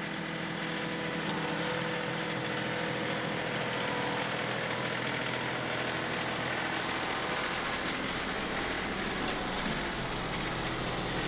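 John Deere 2038R compact tractor's three-cylinder diesel engine idling steadily while it warms up after a cold start. A deeper low rumble comes in about eight seconds in.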